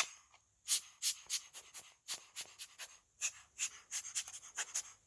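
Small parts being handled during a smartphone repair: an irregular run of short, sharp clicks and crackles, several a second.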